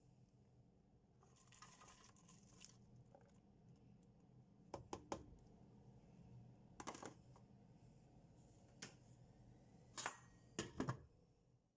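Chopped onions and tomatoes tipped from a plastic tub into a stainless steel pot, with a few short knocks and clinks of cookware, the loudest cluster near the end, over a faint low hum.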